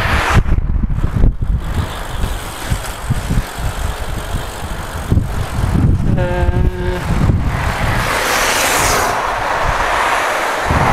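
Wind buffeting the microphone of a camera on a moving road bike, with street traffic behind it. About six seconds in, a short pitched tone sounds for about a second.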